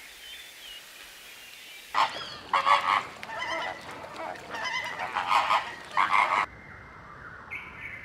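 A flock of flamingos honking: several loud calls overlap in bursts, starting about two seconds in and cutting off sharply about two seconds before the end.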